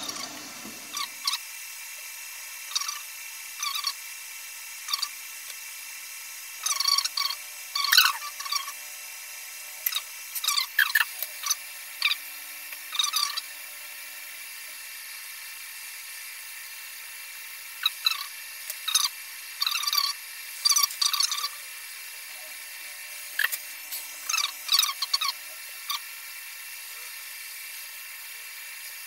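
Hot-air rework gun blowing steadily on full airflow as it heats the SIM slot to desolder it. Short, irregular scrapes and clicks come from a metal tool working against the circuit board.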